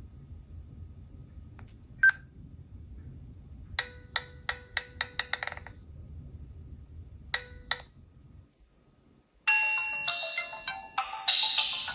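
A Nokia N97 playing a ringtone through its speaker, starting about two thirds of the way in: a bright melody of quick, chiming, mallet-like notes. Before it comes a short run of rapid ticking tones, with two more a little later.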